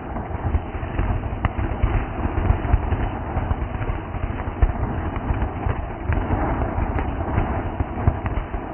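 A firework burning with a continuous crackle, scattered with sharper pops.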